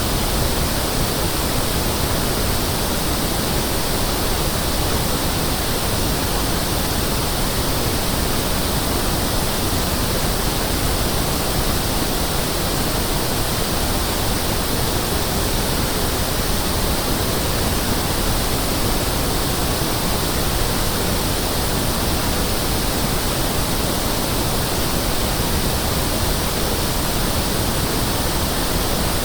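Pink noise test signal for checking speakers and room acoustics: a steady, even hiss that does not change.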